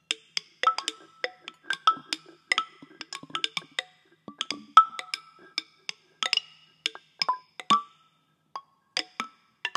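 Handheld found-object percussion instruments (lydes), several layered takes, tapped in a dense, irregular scatter of sharp clicks and knocks, many leaving a brief ringing tone at differing pitches. One strike about five seconds in is the loudest, and the playing thins to a short lull near the end before picking up again.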